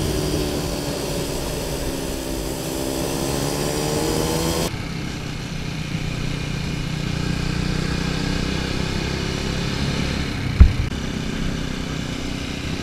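TVS Apache 200 4V's single-cylinder engine running while the motorcycle is ridden, its pitch dipping and then rising again in the first few seconds. A single sharp thump about ten seconds in is the loudest moment.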